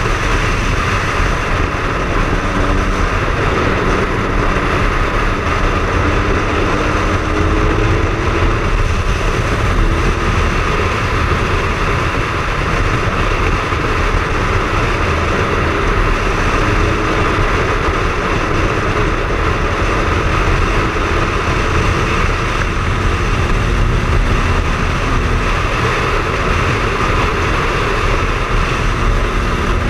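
Triumph Speed Triple's inline three-cylinder engine running while riding, under a steady rush of wind on the microphone. The engine pitch drifts up and down a little as the revs change.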